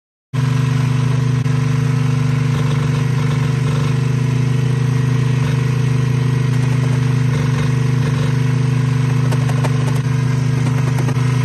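Portable generator engine running steadily at a constant speed, cutting in suddenly just after the start. A few faint clicks come in the last few seconds.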